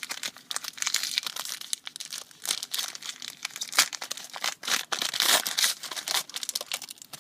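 Foil trading-card pack wrapper being torn open and crinkled in the hands: a dense run of irregular sharp crackles and rustles.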